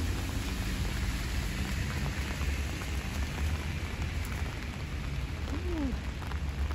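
Steady rain pattering, with a low rumble of wind on the microphone.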